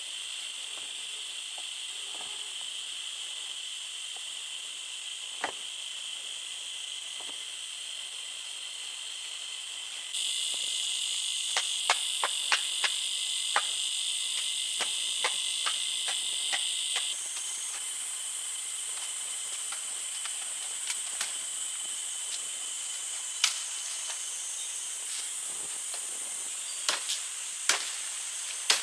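Steady high-pitched chorus of insects, crickets or cicadas, which swells for a stretch in the middle. Irregular sharp knocks or taps are scattered over it, most of them in the middle.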